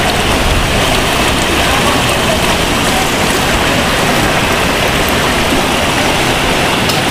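Fast-flowing river rushing steadily past rocks.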